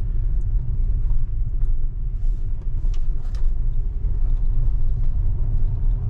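Steady low road and tyre rumble inside a moving Tesla's cabin, with a few faint ticks near the middle.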